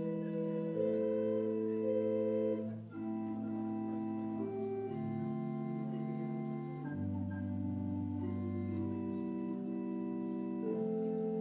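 Organ playing slow, held chords over a low bass line, the chords changing every second or two, with a brief break about three seconds in.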